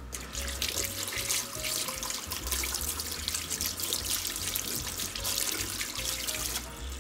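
Kitchen tap running into a stainless-steel sink while squid tentacles are rinsed and rubbed under the stream to work off their hard suckers; the splashing drops away briefly near the end.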